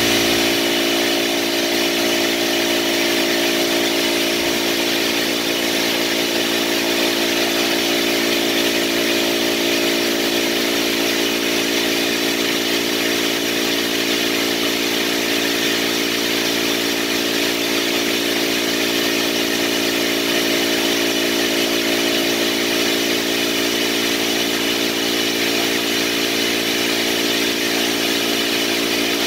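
Steady machine drone with an unchanging hum of several tones over a hiss, like a motor running continuously.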